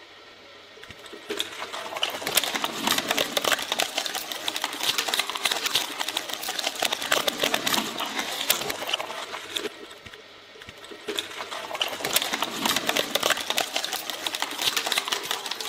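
Twin-shaft shredder's rotating metal cutters chewing through a giant gel-filled glitter stress ball: a dense, rapid crackling clatter that starts about a second in, dips briefly about ten seconds in, then picks up again.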